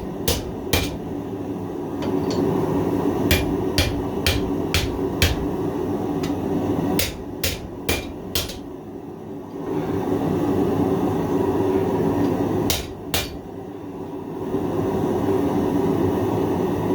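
Blacksmith's hammer striking hot 1/4-inch 1095 carbon steel plate on an anvil in short runs of sharp blows, about two a second, with pauses between the runs. A steady hum runs underneath, dropping out briefly twice.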